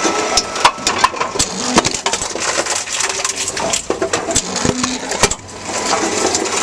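A Tomra TX2 reverse vending machine takes in and crushes returned containers: a steady run of crunching, clattering knocks and rattles, with a brief lull a little after five seconds in.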